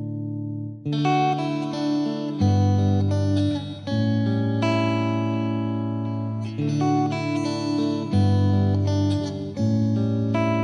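Background music: acoustic guitar playing chords, changing every second or two.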